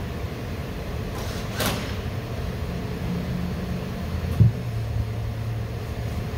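Steady low background rumble, with a brief hiss about one and a half seconds in and a single knock a little after four seconds, followed by a low steady hum for about two seconds.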